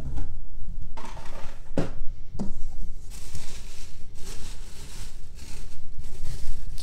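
Plastic bubble wrap crinkling and rustling as a hand digs through it inside a cardboard box, with a few short knocks in the first couple of seconds.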